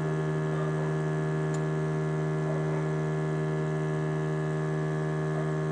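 FoodSaver vacuum pump running steadily, a constant electric motor hum, drawing the air out of a quart mason jar through a hose and jar-sealer attachment to pull the lid down into a vacuum seal.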